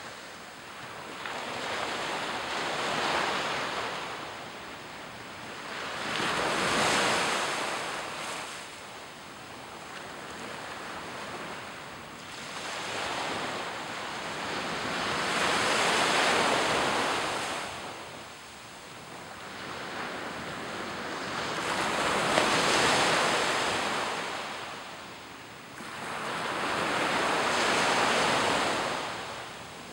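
Small surf breaking and washing up a sandy beach, each wave a rising and falling hiss, one coming every four to six seconds.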